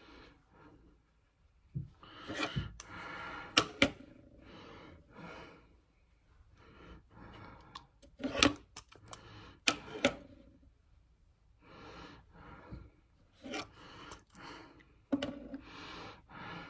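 Face powder being applied with a brush: soft rubbing strokes of a second or two at a time, with several sharp clicks and taps of the makeup being handled.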